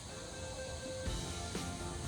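Background music with held tones; a steady beat of about two pulses a second comes in about a second in.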